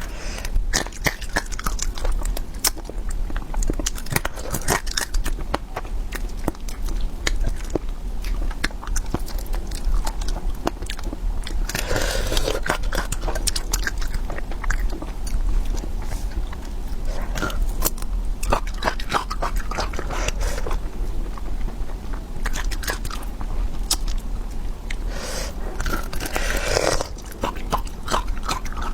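A person chewing and biting crunchy food close to the microphone. The sound is a run of sharp crunches and clicks, with two longer, noisier stretches of chewing, one about twelve seconds in and one near the end.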